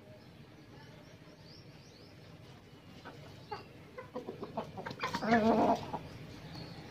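Chickens clucking in short sharp calls, with a louder drawn-out, wavering squawk about five seconds in. Faint high chirps of small birds sound in the first few seconds.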